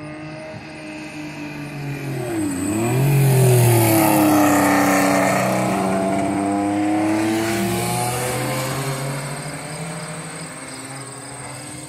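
Race car engines passing on a circuit. One car's engine note dips, then climbs as it accelerates past, loudest about four seconds in, then fades. A second car follows a few seconds later.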